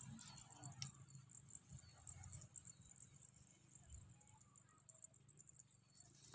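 Near silence with faint, steady high-pitched chirring of insects.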